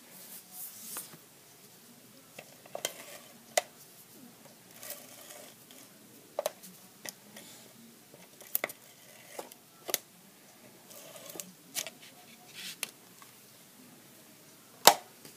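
Cardstock being handled while a Fast Fuse adhesive applicator lays adhesive along its edges: light paper rustle with scattered short clicks and taps, and one sharper click near the end.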